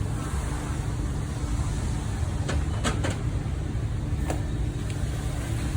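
Worn rear wheel hub bearing turned by hand, grinding roughly (a 'gori-gori' noise), the sign of a failed bearing. A few sharp clicks come about halfway through.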